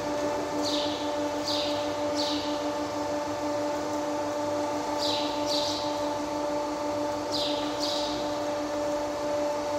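Steady electric hum from the silage bagging machine's motor unit running idle, one pitch with overtones. Pairs of short, high chirps falling in pitch cut in a few times.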